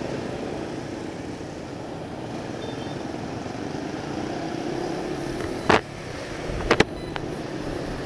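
Motorcycle engine running under way, heard through a helmet-cam microphone with steady road and wind noise; the engine note rises as the bike accelerates. A sharp knock comes a little past halfway, and two more follow close together about a second later.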